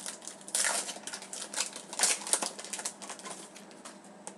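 Trading cards being flipped through by hand and slid over one another: a quick run of papery flicks and rustles, loudest about half a second in and again about two seconds in.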